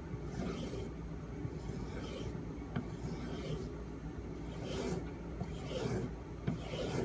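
D2 steel knife blade being stropped to finish the edge after the stones, a run of short rubbing strokes, about one a second.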